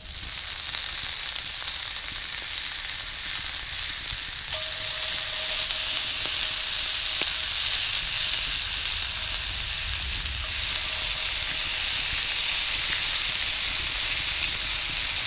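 Bacon sizzling as it fries, a steady hiss that starts suddenly as the strips go in and keeps on evenly, a little louder after about four seconds.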